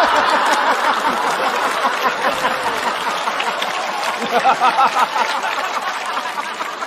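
Studio audience laughing loudly together, with scattered clapping, easing off slightly toward the end.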